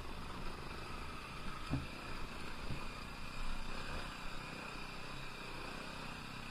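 Honda XR190L's single-cylinder engine running at low speed on a rough dirt track, heard from the rider's own bike. A couple of short thumps come about two seconds in.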